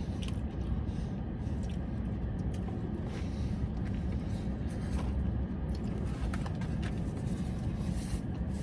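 Steady low vehicle rumble with a few faint clicks scattered through it.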